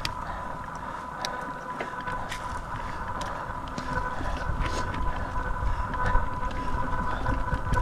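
Mountain bike on a forest trail: scattered clicks and knocks over a low rumble that grows about four seconds in, with a steady high-pitched whine throughout.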